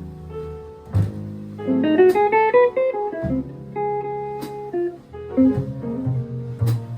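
Guitar, piano, bass and drums playing together, with a quick run of notes about two seconds in and scattered drum and cymbal strokes.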